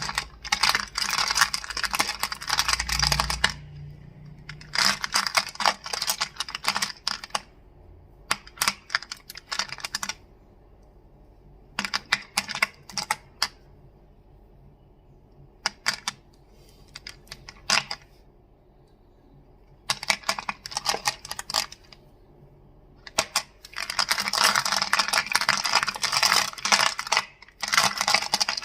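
Crystals clicking and clacking in bursts of rapid taps a few seconds long, with short pauses between. The longest run comes near the end.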